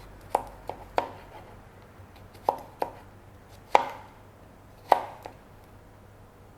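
Kitchen knife chopping cucumber into strips on a chopping board: about eight sharp chops, irregularly spaced and some in quick pairs, stopping a little over five seconds in.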